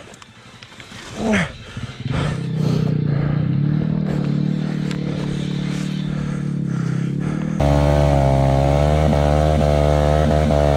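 Small single-cylinder Honda Grom minibike engine running steadily at low revs, with a short falling squeal about a second in. About two-thirds of the way through, the sound cuts abruptly to a louder, closer engine holding a steady note.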